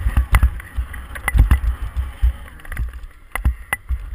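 BMX bike ridden at speed on a dirt track, heard through a helmet-mounted action camera: gusty wind rumble on the microphone with frequent irregular sharp clicks and knocks as the bike rattles over the ground.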